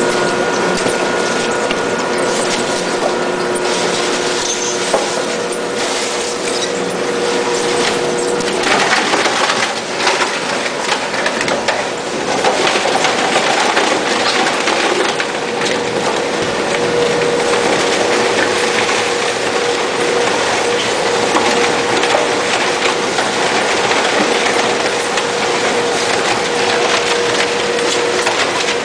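Polystyrene recycling machine running, crushing expanded polystyrene: a dense crackling noise over a steady machine hum, growing louder about a third of the way in.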